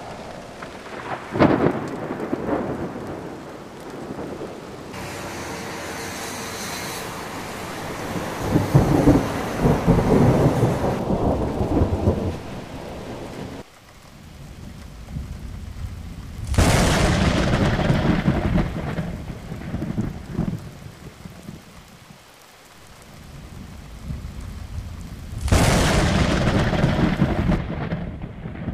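Thunderstorm: steady rain with repeated thunder. There are sharp claps about a second and a half in, just past halfway and near the end, each trailing into a rumble, and a long rolling rumble in between.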